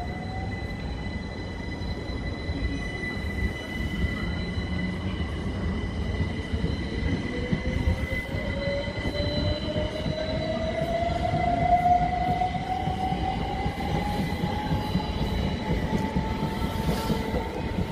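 Class 377 Electrostar electric multiple unit pulling away, its traction motor whine rising steadily in pitch as it gathers speed over a low rumble from the wheels on the track. A few steady high tones sit above it.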